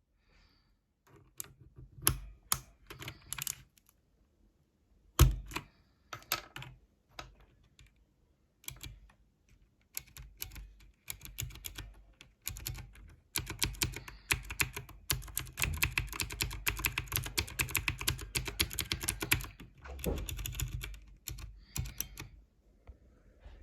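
Ajazz AK33 mechanical keyboard with clicky blue switches being typed on. Scattered keystrokes come first, with one sharp, loud clack about five seconds in. Fast, continuous typing follows from about halfway through until near the end.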